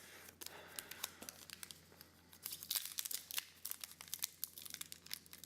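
Foil booster pack wrapper being crinkled and torn open: a run of sharp, papery crackles that grows busier about halfway through.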